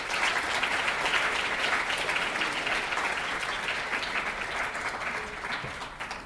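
Audience applauding: many hands clapping together, full for the first few seconds and then tapering off near the end.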